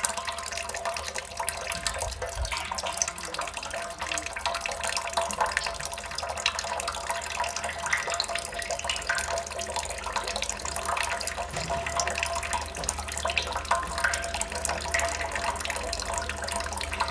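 Water drops falling and splashing into water in a dense, continuous patter of many small splashes.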